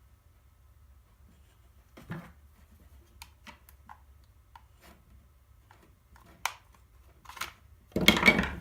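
Scattered light clicks and taps of plastic and metal parts being handled while a sander is taken apart. A short, louder burst of noise comes near the end.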